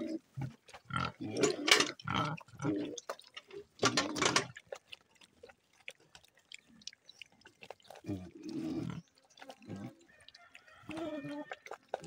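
Black piglets grunting in short bursts as they feed from a metal dish of wet mash, with wet eating noises; a quieter lull comes about halfway through.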